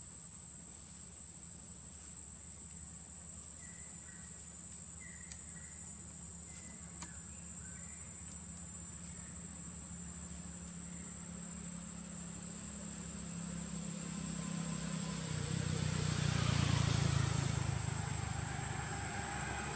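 Steady high-pitched insect drone over the low rumble of a passing motor vehicle, which grows louder and is loudest about three quarters of the way through.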